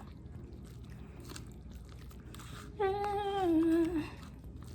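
A woman hums one held note, slightly falling, lasting about a second, starting nearly three seconds in. Before it there is a low steady background rumble with a few faint clicks.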